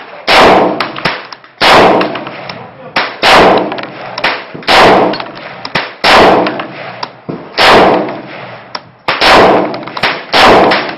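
AR-15 with an Adam Arms gas-piston upper being fired semi-automatically: about eight single shots at a steady pace of roughly one every second and a half, each with a short echo.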